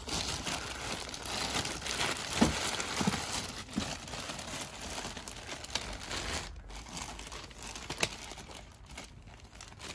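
Plastic zip-top bags crinkling and rustling as hands rummage through a tote full of bagged toy figures, with a few sharper knocks.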